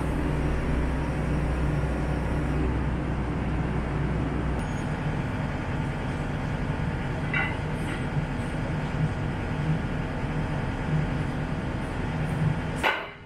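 Excavator diesel engine running steadily. Its deepest note drops away about a third of the way in while the engine keeps running. There are a couple of short knocks, and the sound cuts off suddenly just before the end.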